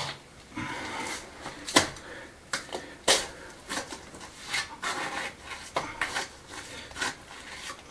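Trowel scraping and tapping against stone and lime mortar: a run of short scrapes with a couple of sharper knocks about two and three seconds in.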